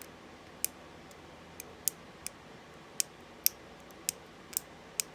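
Lock pick clicking against the wards inside an Abus 64TI 30 mm padlock: about ten sharp, irregularly spaced clicks, which the picker puts down to the warding.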